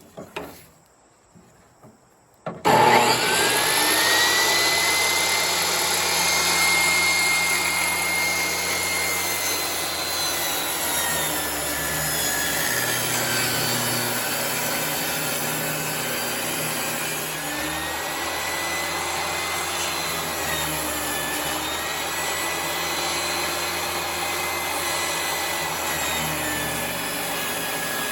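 A power saw starts up about two and a half seconds in and runs continuously, ripping a board lengthwise, its motor whine rising as it spins up and then wavering as the blade loads in the wood.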